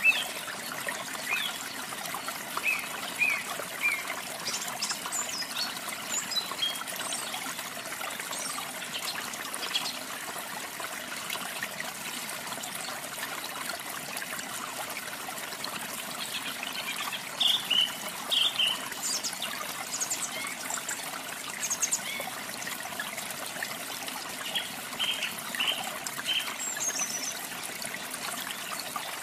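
Water running and trickling steadily, with songbirds chirping in short scattered bursts over it, in several clusters of quick chirps.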